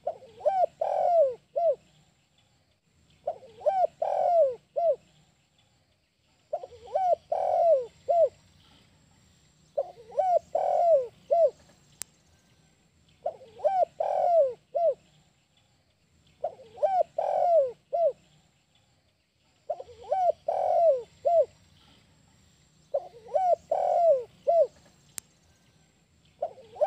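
Spotted dove (tekukur) singing the 'kuk 1' song: a phrase of four or five quick coos, the last one set slightly apart, repeated steadily about every three seconds.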